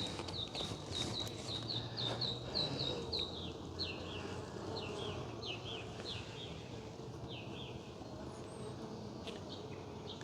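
Honey bees humming around an open hive, with a small bird chirping over it: a quick run of even chirps about four a second in the first few seconds, then slower, falling notes.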